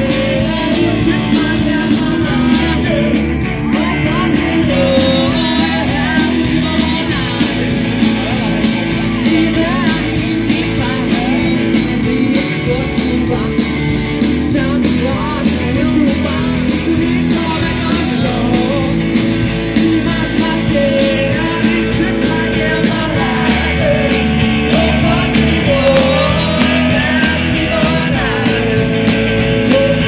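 Live rock band playing: a woman singing lead into a microphone over electric guitar and drums, loud and steady.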